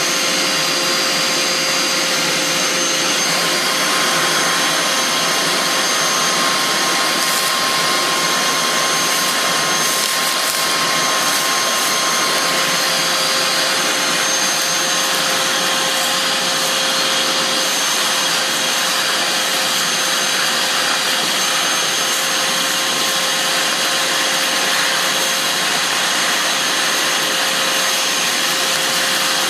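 Vacuum cleaner running steadily through a Chinese-made cyclone dust separator: an unbroken rush of air with a steady motor whine.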